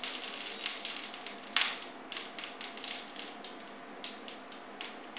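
Cooking oil being squeezed from a plastic bottle into a frying pan: a short hiss at first, then irregular small clicks and crackles.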